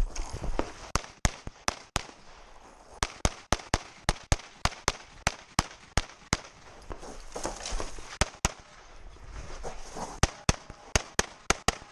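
Rapid pistol fire during a competition stage. Strings of shots come a few tenths of a second apart, broken by pauses of one to two seconds, with a last fast string of about eight shots near the end.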